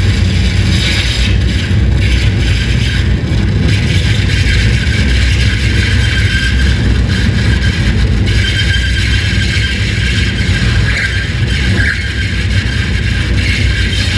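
Live harsh noise from a table of effects pedals and electronics played through an amplifier: a loud, unbroken wall of distorted noise with a heavy low rumble and a scraping hiss above it, shifting in texture but with no beat or tune.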